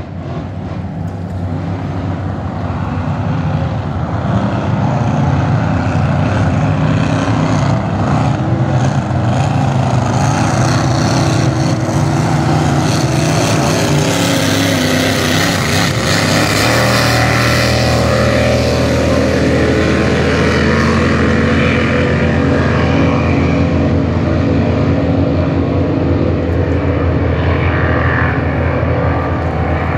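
A pack of Unlimited-class racing power boats running flat out, a loud, steady engine noise that builds over the first few seconds as they approach. About halfway through, the engine note drops as they go past, then carries on.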